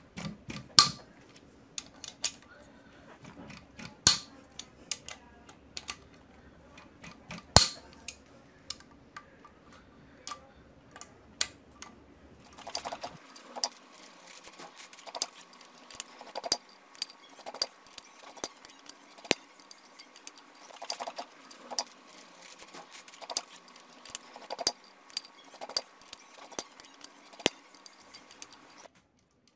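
Metal hand tools clinking against a motorcycle's aluminium cylinder head, with the quick clicking of a ratchet wrench loosening the camshaft holder bolts. The clicks come thicker and faster in the second half.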